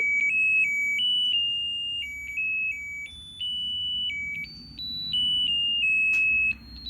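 Snap Circuits U1 music IC playing an electronic tune through the kit's small speaker, one clear beeping note after another, set off by the sound-activated switch. A 100-ohm resistor between the chip and the speaker lowers the volume.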